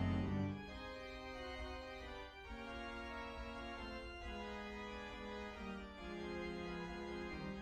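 Organ music: a loud low chord cuts off about half a second in, then a quieter running melody moves over sustained chords.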